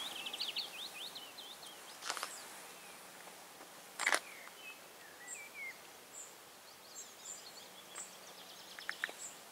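Small songbirds singing faintly: a rapid high trill at the start, then scattered short chirps and high notes. A few sharp clicks sound about two and four seconds in and again near the end.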